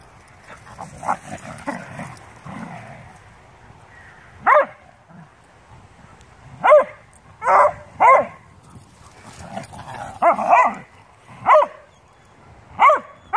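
A beagle-shepherd mix and a bluetick coonhound play-fighting and vocalising at each other. Softer low growling noises come in the first few seconds, then a string of about eight short, sharp barks, roughly one a second.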